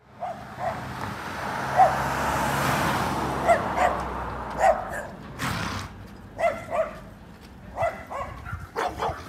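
A dog barking repeatedly in short, sharp barks at uneven intervals, while a car passes in the first half.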